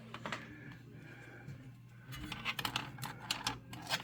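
A quick, uneven run of light clicks and taps starting about two seconds in, over a steady low hum.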